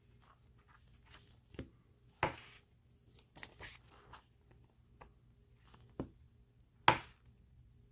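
Pages of a large photo book being turned and handled: a few short, sharp paper flaps and rustles, the loudest near the end.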